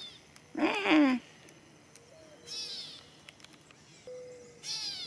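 Gray catbird mewing: a few short cat-like calls, with a loud drawn-out mew just under a second in. Faint low mourning dove coos near the end.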